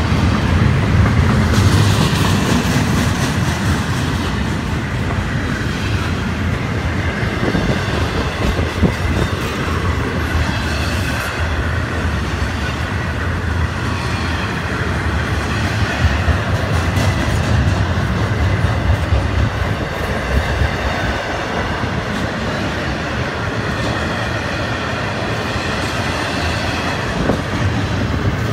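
Intermodal freight cars of a Florida East Coast train rolling past at close range: a steady rumble of steel wheels on rail, with scattered clacks as the wheels pass over the rail joints.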